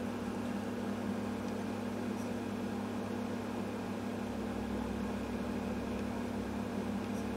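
Steady low machine hum, even and unchanging, with a faint hiss over it.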